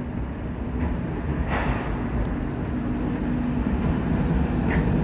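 Tram running close by: a low rumble with a steady hum that grows slowly louder, and a brief hiss about a second and a half in.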